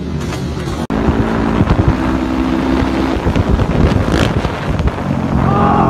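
Motorcycle engine running steadily at road speed, with wind buffeting on the microphone.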